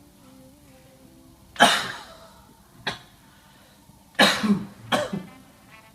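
A man coughing deliberately as part of a directed-cough airway-clearance exercise for COPD. One strong cough comes about one and a half seconds in, a short one a second later, and a quick run of three coughs near the end.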